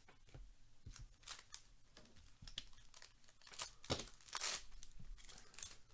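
Foil wrapper of a Topps baseball card pack being torn open and crinkled by gloved hands: a series of short crackly rips, loudest about four seconds in.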